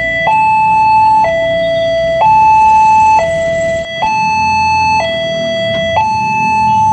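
Electronic warning alarm of a new Betlintas railway level crossing, sounding a loud two-tone signal that alternates between a lower and a higher tone about once a second. It sounds as the barrier arm lowers, warning that a train is approaching.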